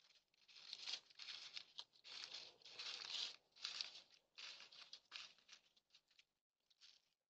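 Faint, irregular crunching and rustling in short bursts, each about half a second long, from a deer's hooves stepping on frozen gravel and snow. The crunching dies away about six seconds in.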